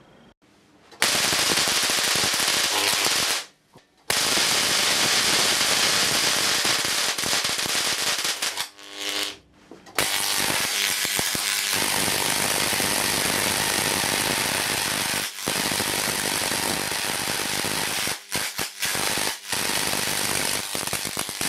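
High-voltage arcs crackling loudly in a rapid, continuous buzz of sparks, striking from an electrode onto the foil of a homemade drain-pipe capacitor that has been pushed past its design voltage. The arcing starts about a second in, cuts out briefly twice, about three and a half and nine seconds in, and stutters a few times near the end.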